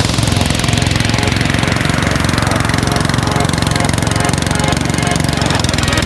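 Engine-driven portable rice thresher running steadily with a fast, even rattle as rice stalks are fed into it.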